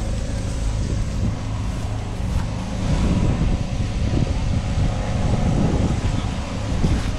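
An engine running steadily with a low, even hum, and wind buffeting the microphone more strongly from about three seconds in.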